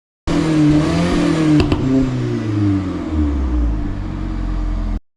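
Alfa Romeo car's engine and exhaust with the revs falling off the throttle, with two sharp pops about a second and a half in: overrun crackles from a pops-and-bangs map tune on the MED17.3.1 engine ECU. The sound cuts off suddenly.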